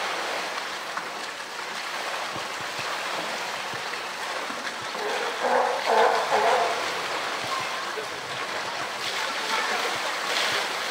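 Water in a polar bear's pool: a steady rush of water, with a brief louder burst about halfway through and splashing near the end as the wet bear climbs out.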